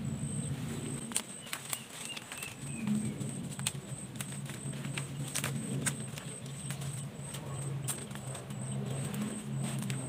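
Leaves and thin twigs being snapped and stripped off a sapling by hand, a scatter of sharp snaps with leafy rustling between. Behind it an insect chirps steadily several times a second, with a low steady hum underneath.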